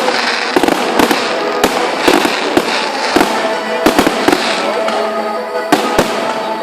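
Fireworks display going off: a dense, irregular run of sharp bangs and crackles, several a second, with music playing underneath.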